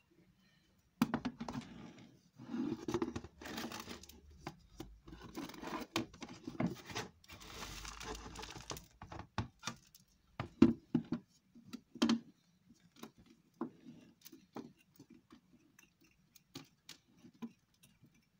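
Compacted peat nursery soil being scraped and picked out of a ficus ginseng's root ball with a hand tool: irregular scraping, crumbling and rustling with sharp clicks and knocks, starting about a second in and thinning out in the last few seconds.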